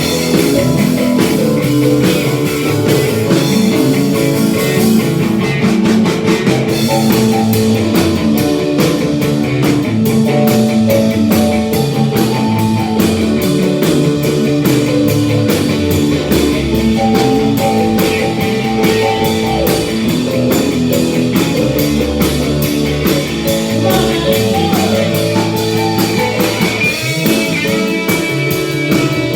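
Rock music with electric guitar over a drum kit beat; a steady, even cymbal or hi-hat pattern comes through clearly from about six seconds in.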